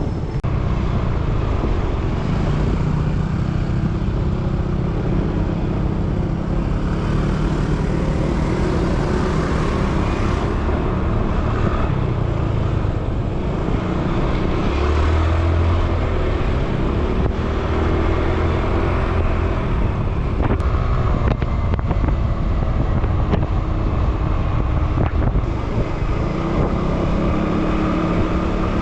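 Motorbike running at road speed on a highway, heard from a chest-mounted camera on the rider, with a steady rush of wind and road noise over the engine.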